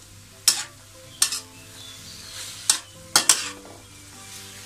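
Metal spatula scraping and knocking against a metal wok while bean sprouts, tofu and minced pork are stir-fried, over a light sizzle. About five sharp strokes, two of them close together about three seconds in.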